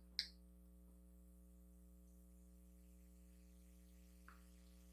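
Near silence: a faint steady electrical hum, with one short soft click just after the start and a tiny tick about four seconds in.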